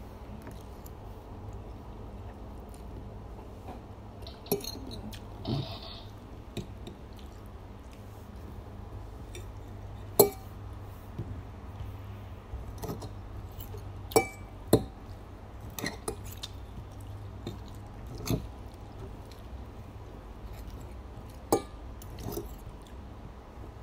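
Metal fork and spoon clinking and scraping against a plate now and then while eating noodles, about ten sharp clinks over a steady low hum.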